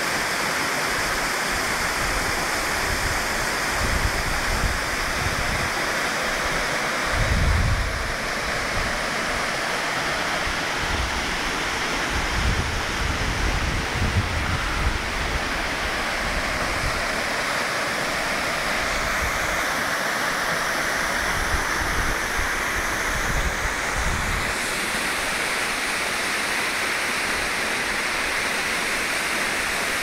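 Waterfall pouring into a rocky pool: a steady rush of falling water throughout, with a few short low rumbles on the phone's microphone.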